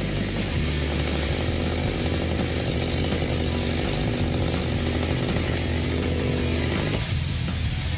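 Two-stroke chainsaw engine running steadily at high speed. About seven seconds in it cuts off abruptly, giving way to a different mechanical sound.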